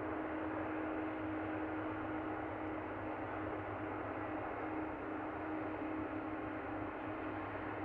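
Jet engines of a taxiing Boeing 737-500 (CFM56-3 turbofans) running at low thrust: a steady rushing noise with a constant hum, unchanging in level.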